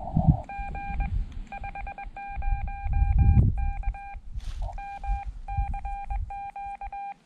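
Xiegu X5105 transceiver's CW sidetone: a steady beeping tone keyed in Morse code dots and dashes as CW is sent on the paddle, with the receiver's hiss cut off while it keys. Low rumbling thumps run underneath.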